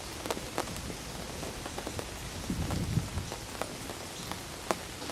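Steady rain falling on a surface, with scattered sharp ticks of single drops.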